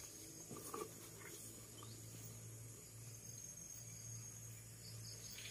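Faint steady high-pitched insect trilling, like crickets, over a low steady hum, with a few faint brief sounds in the first second and a half.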